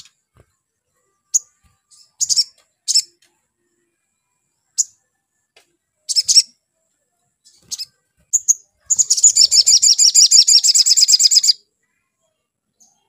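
Male olive-backed sunbird calling: scattered sharp, high chirps, then about nine seconds in a fast trill of roughly ten notes a second lasting two and a half seconds. The song is offered as a lure to work other olive-backed sunbirds up into singing.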